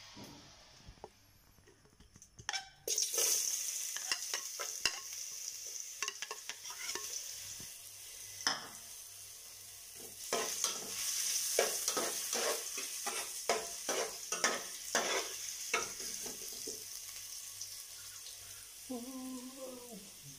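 Julienned ginger sizzling in hot cooking oil in an aluminium pot. The sizzle starts suddenly about three seconds in as the ginger hits the oil, and a spoon knocks and scrapes against the pot as it is stirred.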